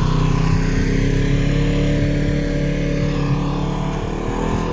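Motor vehicle engine running close by as it drives past, with its pitch rising near the end while it fades slightly.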